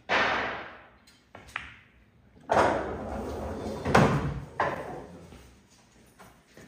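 Several loud bangs, each trailing off over up to a second: one right at the start, two small ones about a second and a half in, and a heavy run of them from about two and a half to nearly five seconds in, the loudest about four seconds in.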